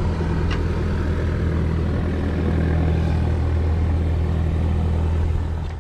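An engine idling steadily, a low even drone that cuts off abruptly near the end.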